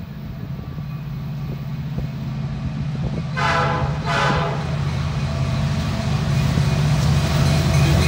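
Approaching diesel freight train, its locomotives' engine rumble growing steadily louder, with two short back-to-back blasts of the lead locomotive's air horn about three and a half seconds in.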